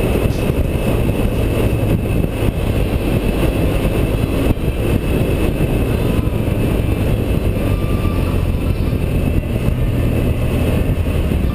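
Motorcycle cruising at a steady speed, its engine running at an even note under a constant rush of wind noise on the bike-mounted camera's microphone.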